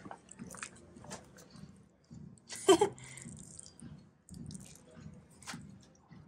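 Close rustling and light clicks of handling noise on the phone's microphone, with one short, loud sound a little under halfway through.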